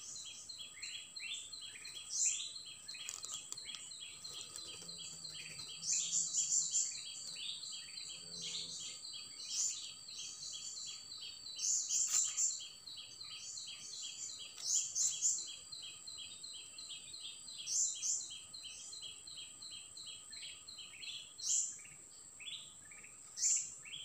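Wild birds calling over a steady insect drone: a continuous high-pitched buzz, with rapid runs of short falling chirps and louder bursts of higher chirping every few seconds.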